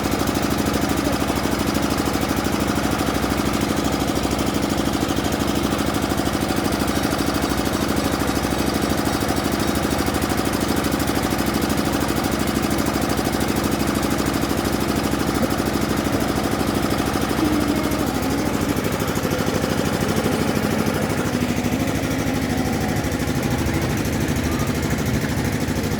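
Engine of road construction machinery running steadily with a fast, even throb, shifting slightly in pitch about two-thirds of the way through.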